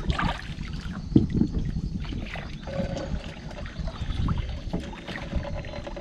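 Small wooden outrigger boat knocking and bumping irregularly, with water sloshing against the hull while a person works over the side.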